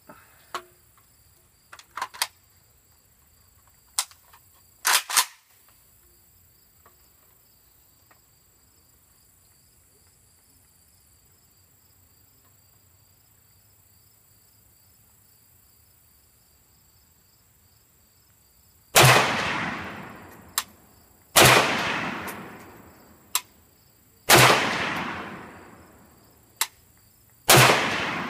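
Norinco MAK-90 AK-pattern rifle in 7.62x39 firing four single shots about three seconds apart, each with a long fading echo and a shorter sharp crack a second later. A few light clicks come before the shooting.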